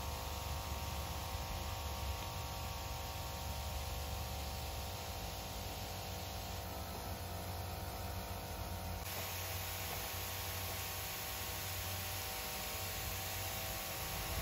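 A misting irrigation system runs steadily: a pump hums with a few steady tones while water sprays as a fine mist through four-way nozzles, making an even hiss. The hiss turns brighter about nine seconds in.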